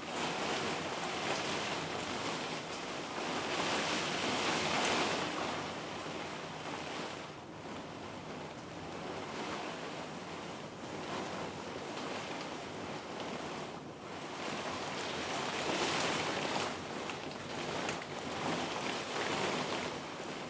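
Heavy wind-driven rain from a passing squall line, a steady rushing downpour that swells with gusts about four seconds in and again around sixteen seconds.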